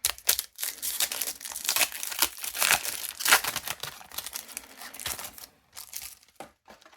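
Foil wrapper of a Pokémon card booster pack crinkling and tearing as it is ripped open and handled, a dense run of crackles that thins out about five and a half seconds in.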